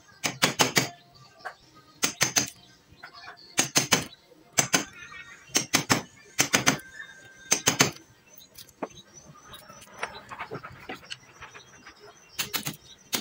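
Hammer striking a chisel as it cuts a joint into an ulin (Borneo ironwood) beam: quick groups of two to four sharp taps about once a second. A pause of about four seconds comes before a last group near the end.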